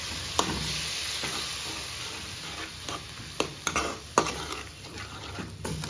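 Onion-tomato masala sizzling in a metal kadai while a steel ladle stirs it, with a few sharp knocks and scrapes of the ladle against the pan.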